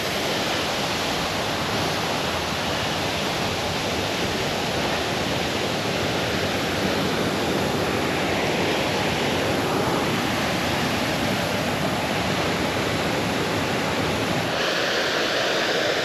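Water rushing over a weir on a moorland brook: a steady, loud rush, with a slight change in its sound near the end.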